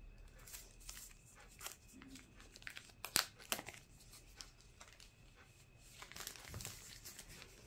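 Thin plastic protective sleeve crinkling and rustling as a smartphone is slid out of it, with a cluster of sharp crackles about three seconds in and more rustling near the end.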